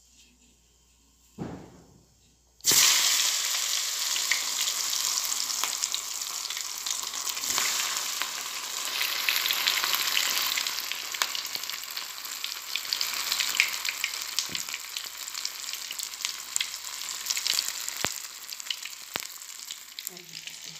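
Chicken wings deep-frying in hot oil in a small pan, a loud crackling sizzle that starts suddenly about three seconds in and runs on steadily.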